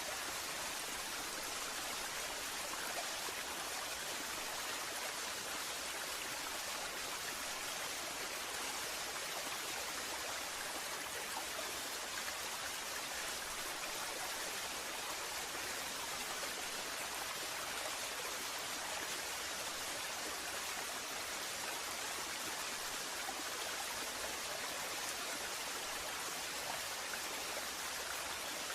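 Waterfall: water falling and splashing in a steady, unchanging rush.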